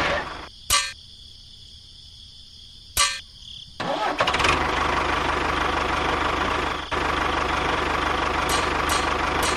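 Engine running steadily, then cut off abruptly about half a second in. Two sharp clicks fall in a gap of about three seconds, then the engine comes back and runs on steadily.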